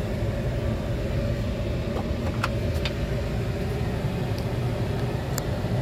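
2017 Ram 2500 pickup's engine idling, a steady low rumble heard from inside the cab, with a few light clicks from about halfway through.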